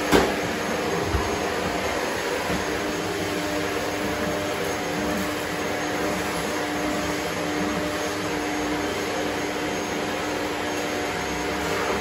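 Shark upright vacuum cleaner running steadily, its motor giving a constant hum over the rush of suction. A sharp knock sounds just at the start, and a lighter one about a second in.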